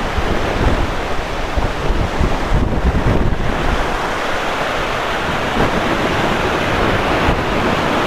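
Storm surf breaking and washing up the beach in strong wind, with wind buffeting the microphone.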